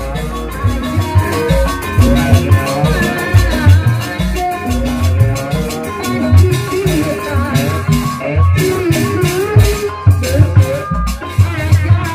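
Live Sundanese jaipongan music in bajidoran style: kendang hand drums beat a busy, syncopated rhythm under a woman's singing and melody instruments.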